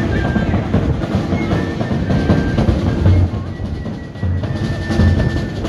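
Live Barbadian tuk band music: a snare drum rolling and beating fast over repeated bass-drum thuds, with a penny whistle playing short high held notes.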